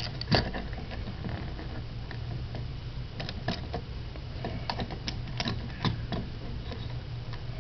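Light plastic clicks and taps from a Transformers Nightbeat scout-class action figure as its jointed plastic limbs and parts are moved and the figure is set upright. The clicks come at irregular intervals, the strongest about half a second in, over a low steady hum.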